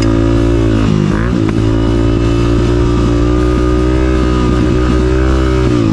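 Honda CRF 250F's single-cylinder four-stroke engine running under throttle on a dirt track, its pitch dipping and picking back up about a second in and again near the end. Rock music with guitar plays over it.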